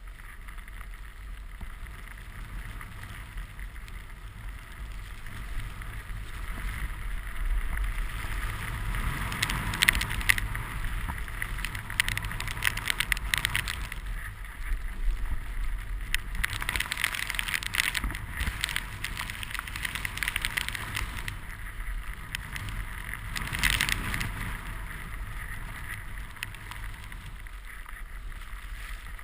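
Snowboard sliding through fresh powder with wind buffeting the mounted camera's microphone: a steady low rumble, and a hissing rush of snow that swells several times.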